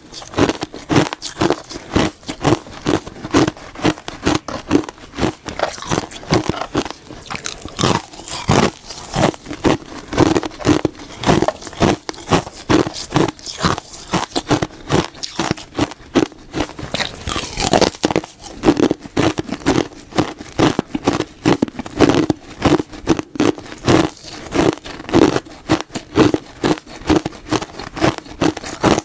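Close-miked biting and chewing of something hard and crisp, sharp crunches coming a few times a second.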